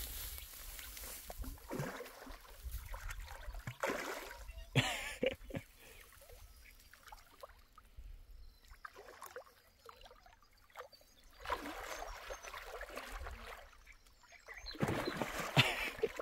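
Irregular splashing and trickling of water, loudest about five seconds in and again near the end, over a steady low rumble.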